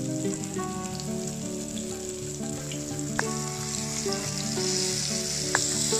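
Chicken cutlets shallow-frying in oil in a pan, a steady sizzle with two sharp pops, about three and five and a half seconds in. Background music with a simple stepping melody plays underneath.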